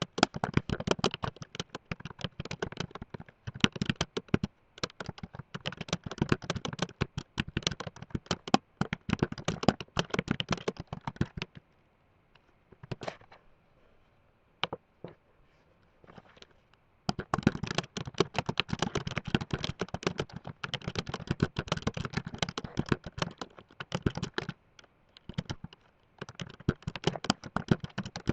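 Fast typing on a computer keyboard, a rapid run of key clicks, stopping for a few seconds about halfway through with only a few isolated keystrokes, then resuming at full speed.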